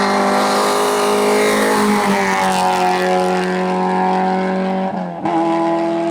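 Rally car engine running hard at high revs, its pitch easing down slightly about two seconds in. About five seconds in the sound breaks off abruptly, then it carries on at a steady high pitch.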